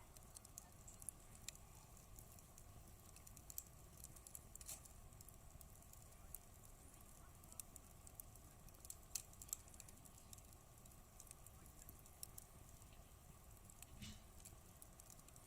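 Faint campfire crackling: burning wood giving off irregular sharp pops and snaps, a few each second.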